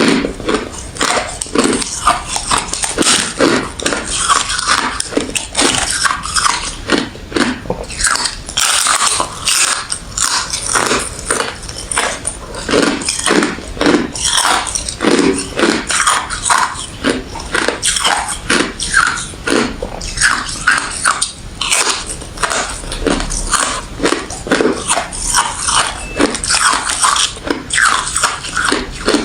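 A person biting and chewing refrozen crushed ice and freezer frost, with continuous close-up crunching and crackling.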